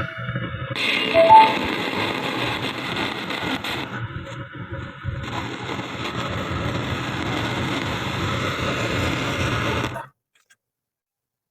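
ENKOR speaker giving a harsh, noisy buzz in place of clean audio, cutting off suddenly about ten seconds in: the buzzing, distorted-sound fault being repaired.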